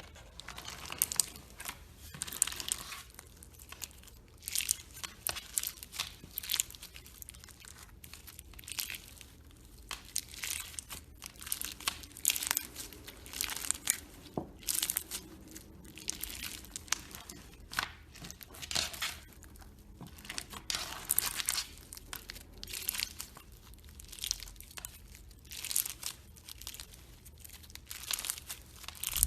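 Slime being squeezed and stretched by hand, giving a quick, irregular series of crackles and pops.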